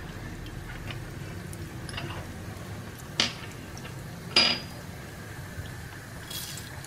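Two sharp clinks of a small glass bowl at a nonstick frying pan, the second with a brief ring, then a short faint patter as urad dal is tipped into the oil, over a low steady hum.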